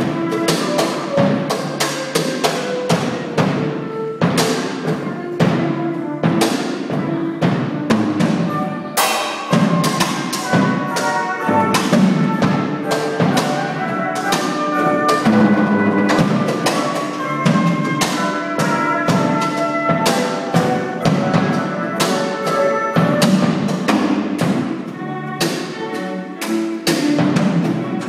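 Ensemble music for saxophones, drums and percussion, and electric cello: fast, dense drum and percussion strikes under a winding melodic line.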